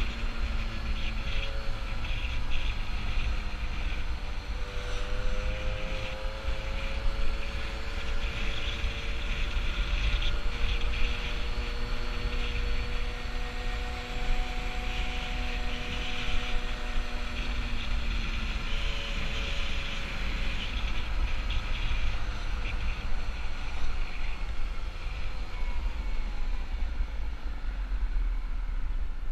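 Peugeot 103 moped's 50cc single-cylinder two-stroke engine running on the move, its pitch rising and falling gently with speed, under heavy wind noise on the microphone.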